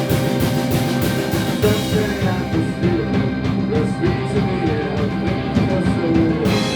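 Live rock band playing: dense drums, bass and guitar, with a steady run of high cymbal-like strokes that stops about two seconds in and a loud crash near the end.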